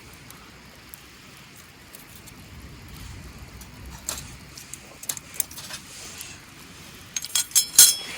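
Metal camp cooking gear clinking and clattering, with scattered sharp clicks and a loud cluster of ringing clinks near the end.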